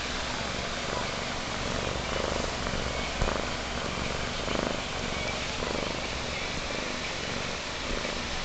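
Young kitten purring steadily while suckling on a fleece blanket, with a single short click about three seconds in.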